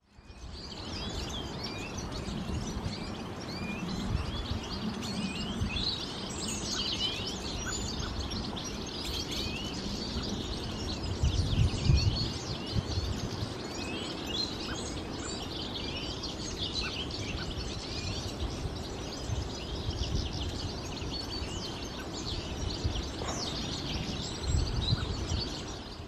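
A busy chorus of small songbirds chirping and twittering, many quick overlapping calls, over a low rumble that swells about halfway through.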